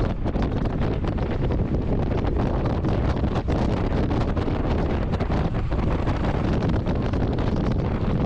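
Wind buffeting the microphone at the open window of a jeep driving at highway speed, over a steady low rumble of road and engine noise.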